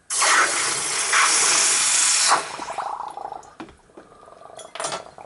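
Freshly soldered copper boiler quenched in a tub of pickle: a sudden loud sizzling hiss for about two seconds, then fading bubbling and crackles, with another short hiss near the end.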